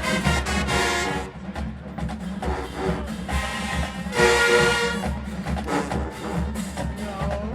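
HBCU-style marching band playing live: loud held brass chords over drumline percussion, the brass dropping out after about a second and coming back with a strong chord around the middle.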